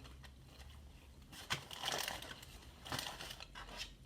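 Close-up eating noises from fried chicken sandwiches: crisp crinkling and crunching as the breaded chicken is bitten and its paper wrapping handled, in short bursts about one and a half seconds in, around two seconds and again around three seconds.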